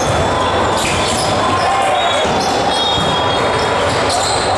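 Busy multi-court volleyball hall din: volleyballs struck and bouncing on hardwood floors, many sharp knocks over a steady background of voices calling out in a large hall.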